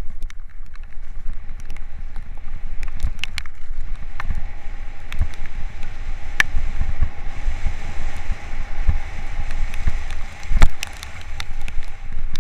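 Mountain bike being ridden down a wet trail. Heavy rumble and buffeting on the microphone, a steady hiss of tyres and rain, and scattered sharp rattles and knocks from the bike over bumps. The loudest knock comes about ten and a half seconds in.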